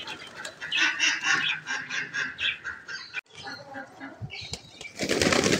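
A flock of fancy pigeons flapping and jostling as they crowd to feed, with a quick run of repeated bird calls, about five a second, in the first half and a burst of wing flapping near the end.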